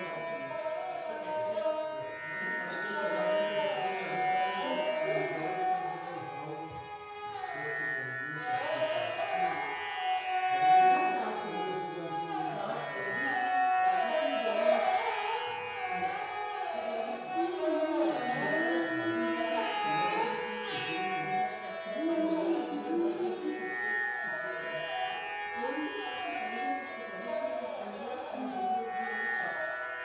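Background Indian classical-style instrumental music: a string melody with gliding notes over a steady held drone.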